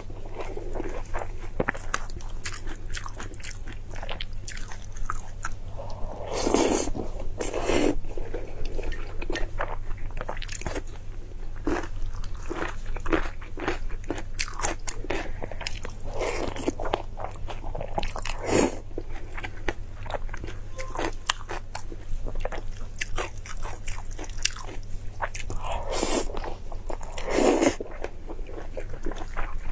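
Close-miked chewing of saucy food: wet, crunchy biting and mouth clicks that keep going, with a few louder moments about a quarter of the way in and again near the end.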